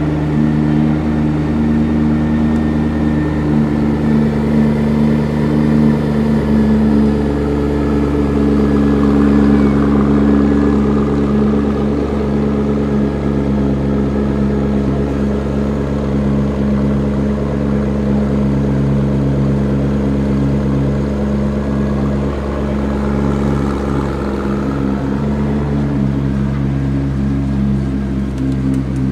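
McLaren P1's twin-turbo V8 engine idling steadily.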